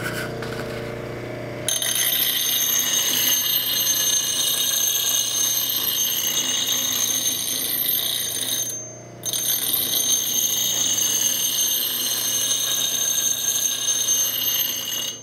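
Bench grinder with a 100-grit aluminum oxide wheel grinding the steel bevel of an adze: the motor hums, then about two seconds in the steel meets the wheel with a steady high-pitched grinding hiss. It breaks off for about half a second near the middle, resumes, and stops right at the end.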